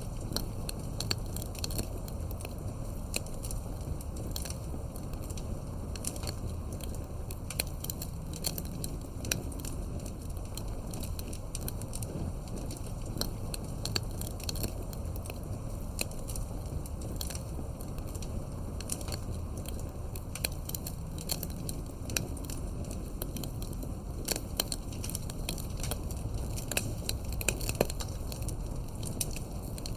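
Wood fire burning steadily, crackling and popping with many small sharp snaps over a low rumble.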